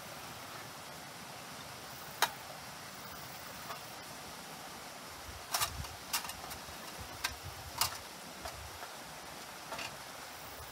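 Sharp clinks and knocks of metal camping coffee gear being handled and set down: one about two seconds in, a cluster around the middle and another near the end. Under them runs the steady hiss of a stream.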